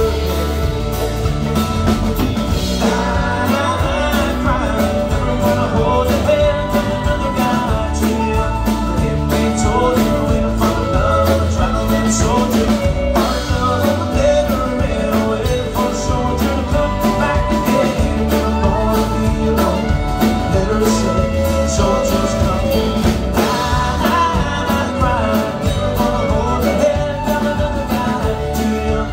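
A live band playing a country-rock song, with acoustic and electric guitars, bass, drums and fiddle, heard steadily and loudly.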